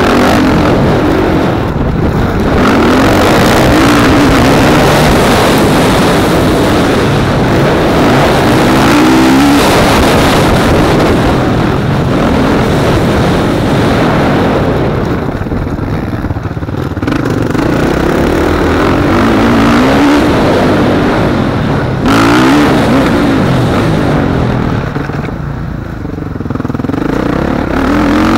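Motocross bike engine heard from on board at speed, revving up and easing off again and again through the corners, with the throttle backing off briefly about halfway through and again near the end.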